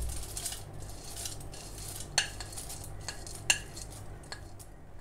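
Dry-roasted dried prawns being spooned from a bowl into a steel mixer jar: a light rustle of the crisp prawns tumbling in, with a few sharp clinks of the metal spoon, the loudest about three and a half seconds in.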